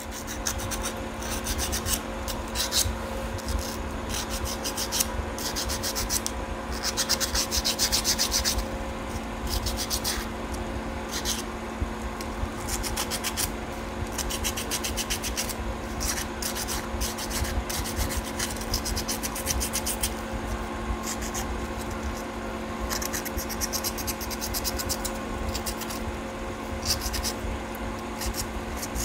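A gas geyser's water-valve magnet being rubbed by hand with abrasive paper: a run of uneven rasping scrape strokes. The magnet is being cleaned so that it can rise to the sensor again, without which the geyser will not start.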